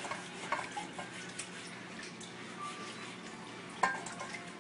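Light clinks and taps of kitchen utensils against dishes, with a short louder knock a little before the end.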